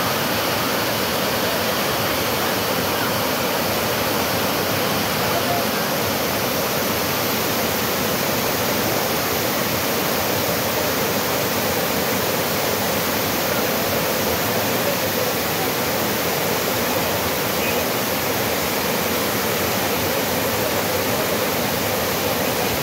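Waterfall rushing: a loud, steady roar of falling water with no let-up.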